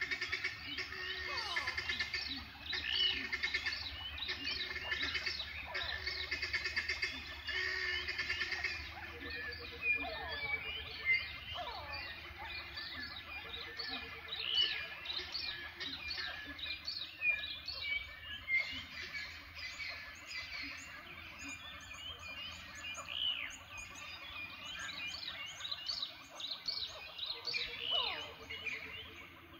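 A dense chorus of many birds chirping and calling, full of quick downward-sweeping notes, with a short low pulsed trill coming in every few seconds.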